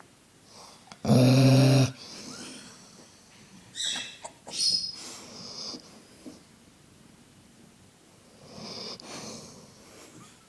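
A Dobermann snoring, with one loud, buzzing snore about a second in and softer snoring breaths later. A Senegal parrot gives short, high chirps and whistles around four to six seconds in.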